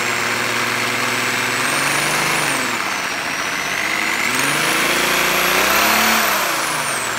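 Electric drill running at low speed, its bit cutting into a hardened steel Allen bolt. The motor's whine rises and falls as the trigger is eased and squeezed: it drops about three seconds in, climbs again, then winds down near the end.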